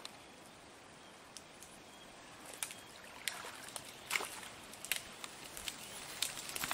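Faint outdoor ambience with a few short, soft clicks and rustles that become more frequent and a little louder in the second half.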